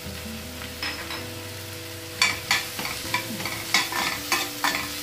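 A perforated steel spatula stirring and scraping sliced onions, tomato and green chilli as they sauté in a stainless steel pan. The scrapes come in short runs of two or three strokes, over the steady hiss of the frying.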